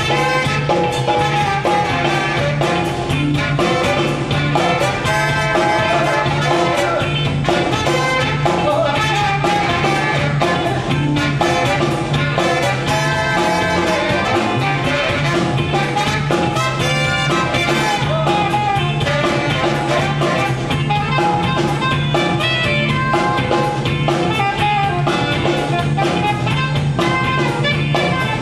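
Live band playing an upbeat number with a steady drum beat and bass line, continuous and loud.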